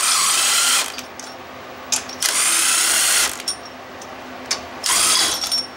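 Cordless power tool spinning a socket to loosen cylinder head bolts, in three short runs of about a second each with pauses between.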